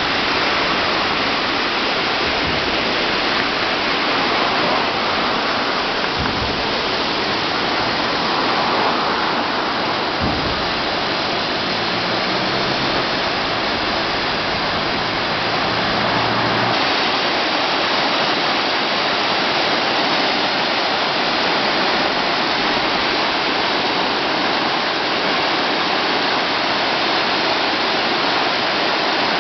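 Steady loud rush of a river running high and fast after a typhoon.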